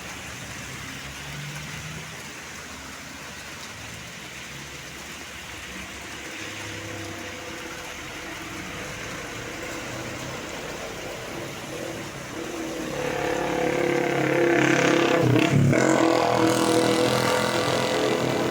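Road traffic with a bus engine running. About two-thirds through, a bus draws close and the sound grows much louder, with several steady tones over the engine that peak briefly before easing off.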